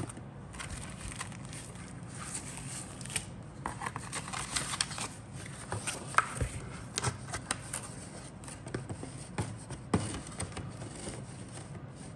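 Handling of a plastic model kit's contents: the clear plastic bag around the sprues crinkling, and the cardboard box and paper sheets scraping and tapping on a cutting mat, in irregular rustles and small knocks.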